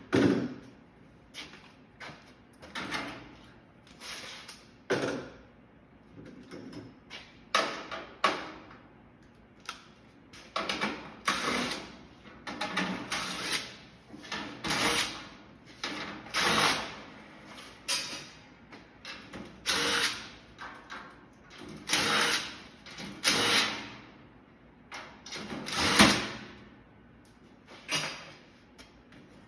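Power drill run in short bursts over and over, each for about a second, while an air conditioner is being taken apart.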